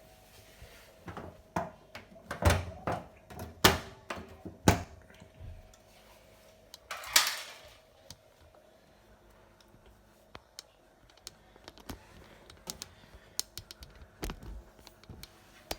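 Irregular knocks and clicks of hard plastic being handled, typical of working open the filter access panel at the foot of a front-loading washing machine, with a louder scraping rush about seven seconds in and lighter ticks near the end.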